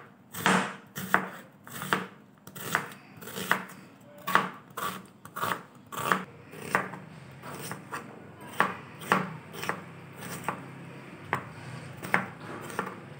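Red onion being sliced with a knife on a cutting board: even knife strokes, each cutting through the onion and tapping the board, about two a second.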